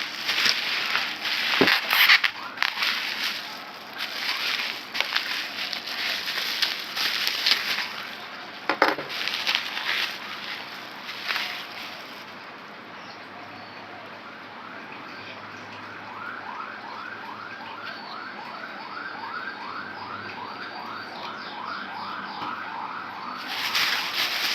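Crinkling and rustling packaging with handling clicks as a boxed graphics card is unwrapped. In the second half this gives way to a fast, evenly repeating rising chirp that goes on for several seconds.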